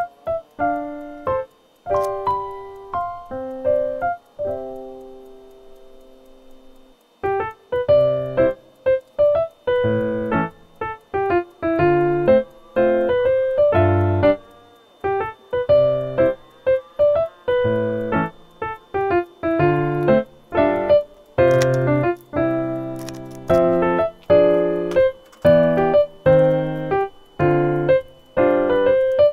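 Background music: a light keyboard tune of short struck notes. Around five to seven seconds in it thins to a few fading notes, then picks up again, busier, with fuller low notes.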